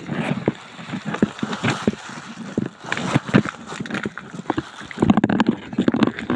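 Footsteps of a hiker descending a rough mountain trail: irregular thuds and scuffs, several a second.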